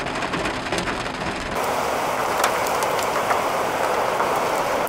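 Rain falling, heard from inside a vehicle, then a sudden change about a second and a half in to the steady rushing wind noise of a large tornado, with a few sharp cracks.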